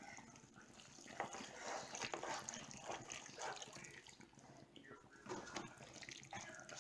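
Spoon stirring cheese-sauced macaroni in a pan: faint, irregular wet squelches and scrapes.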